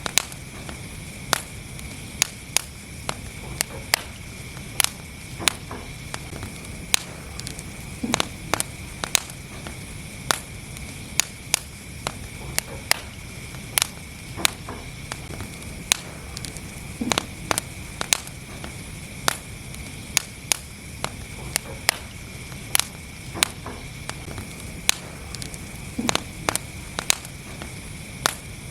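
Wood fire burning in a fireplace, with frequent sharp, irregular crackles and pops over a steady low rumble.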